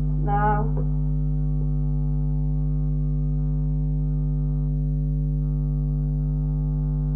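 Steady electrical mains hum, a low buzz with a stack of overtones, holding at an even level on the recording.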